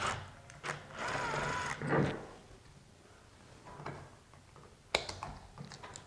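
Clicks and knocks of hands working on a slide-out motor's wiring and plastic connector, with a brief whirr about a second in, then another cluster of clicks near the end as the power connector is pulled apart.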